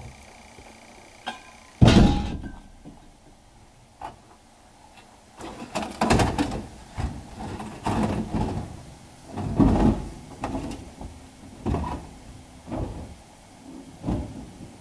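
Scrap metal being handled and loaded into a vehicle: one loud bang about two seconds in, then a run of clanks and thumps roughly once a second.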